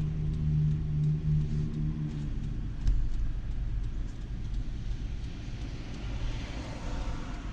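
Inside a moving Hyundai car in slow traffic: a steady engine hum with low road rumble for the first two seconds, then the hum fades and only the rumble is left. About six seconds in, a higher droning sound comes in.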